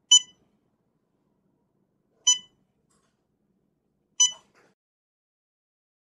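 KDC200 barcode scanner beeping three times, a short beep at the start, another about two seconds in and a third about four seconds in, each confirming a good read of a setting barcode scanned in turn.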